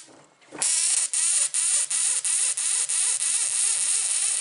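Homemade solenoid piston engine with a Bedini-type pulse circuit starting up about half a second in. Electric sparking gives a loud, steady high hiss, with sharp regular clicks about three a second.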